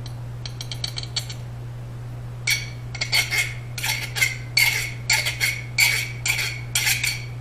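A hand file scraping in quick strokes, about three a second, along the edge of a freshly quenched steel seax blade. The file skates and rings on the metal instead of biting, the sign that the blade has hardened. A steady low hum runs underneath.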